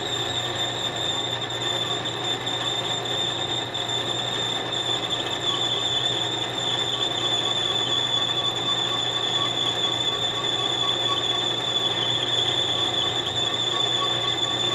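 Lathe tool cutting a snap ring groove in a 1¼-inch stainless steel pin under power feed at 235 RPM, with coolant on the cut: a steady high-pitched tone over the running lathe, growing slightly louder.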